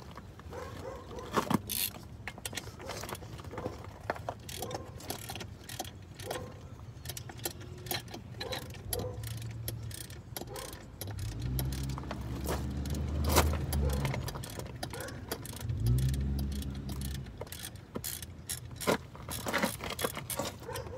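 Ratcheting 17 mm box-end wrench clicking and metal tools clinking as it turns the top mount nut off a Nissan Sentra front strut. A low rumble comes twice, past the middle.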